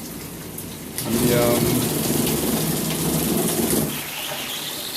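Water spraying from a Waterpik 14-spray handheld shower head, getting louder and fuller about a second in and dropping back shortly before the end.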